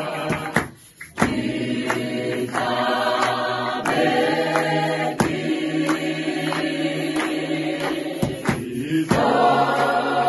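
Mixed-voice a cappella gospel choir singing in harmony in Sesotho, with sharp hand claps keeping a regular beat. The singing breaks off briefly about a second in, then resumes.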